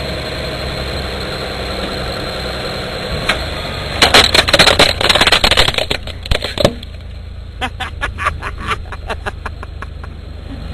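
A car engine running steadily, then about four seconds in a rapid run of sharp cracks and crunches lasting a few seconds as a plastic toy car breaks apart under the car's tyre, followed by scattered single snaps.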